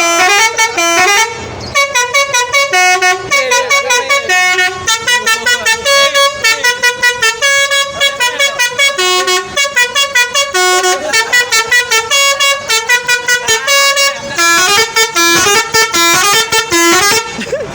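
A bus's new multi-tone musical horn, of the Indonesian 'telolet' kind, played as a melody: a quick run of short, stepped horn notes with brief gaps between them. It stops briefly about a second and a half in, then plays on.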